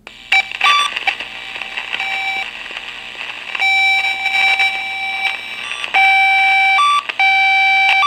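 Tone probe's speaker giving out the PoE Pro tester's tone: a loud, alarm-like tone that steps between two pitches over a hiss. It gets louder in stretches as the tone is switched between all of the cable's pins and only certain pins.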